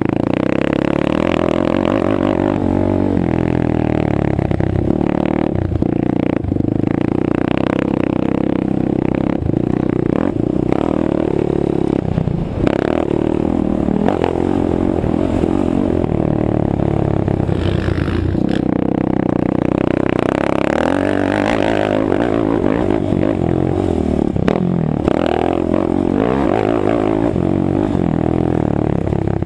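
Suzuki LTR 450 quad's single-cylinder four-stroke engine running hard, its pitch rising and falling as the rider accelerates and backs off through the turns. Frequent short knocks come from the bumpy dirt track.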